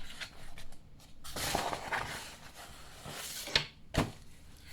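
Rummaging through stored gear by hand: rustling and shuffling of items, then two sharp knocks a fraction of a second apart near the end.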